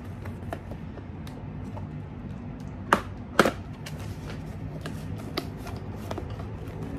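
Cardboard product box being opened by hand: small clicks and scrapes from the flap, with two sharp snaps about three seconds in as the flap is pulled open.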